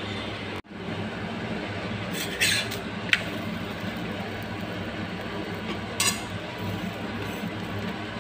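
Steady hiss of a stuffed paratha cooking in oil on a hot cast-iron tawa, broken by light metal clinks about two and three seconds in and again around six seconds.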